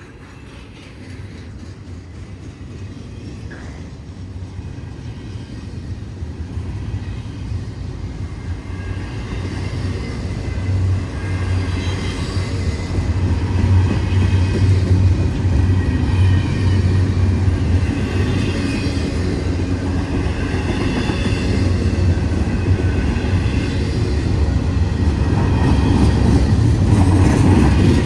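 CSX train rolling slowly past, a deep rumble that grows louder over the first dozen seconds and then holds steady.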